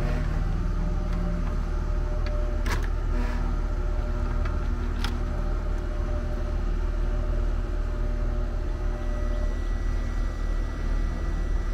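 Steady low rumble, with two sharp clicks about three and five seconds in as wire connectors are worked off an air conditioner contactor's terminals.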